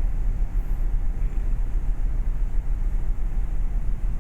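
Steady low rumble on board a ferry under way.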